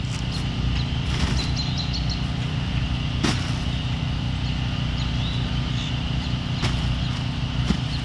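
Portable generator running steadily with a low hum, with a few sharp strikes of a shovel digging into soil.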